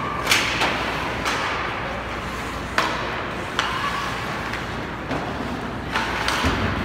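Ice hockey play echoing in an arena: sharp clacks of sticks on the puck and the puck striking the boards, seven knocks scattered irregularly over a steady background hum.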